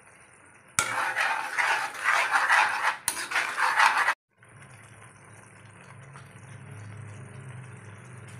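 A metal spoon stirring a thick coconut-milk and shrimp-paste mixture in a steel wok, scraping and clinking against the pan for about three seconds before it cuts off abruptly. After that comes a steady low hum with a faint simmer.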